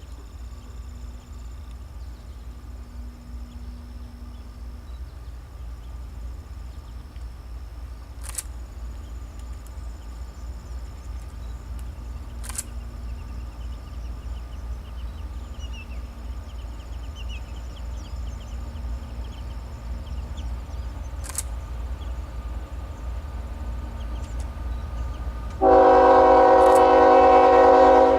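Train approaching with a low rumble that slowly grows louder, then a loud chord of a train horn sounding once for about two and a half seconds near the end.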